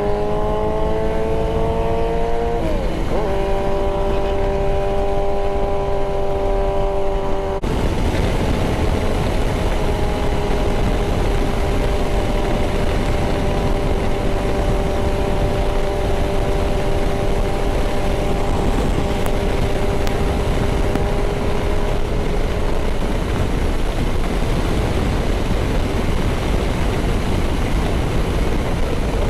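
Motorcycle engine pulling hard at highway speed, its drone climbing in pitch and then dropping with a gear change about three seconds in. From about eight seconds a heavy wind rush takes over, with the engine holding a steady drone at around 100 mph.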